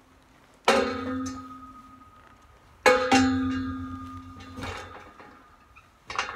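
Metal pipe panel of a round pen clanging three times, each strike ringing on for a second or two before fading.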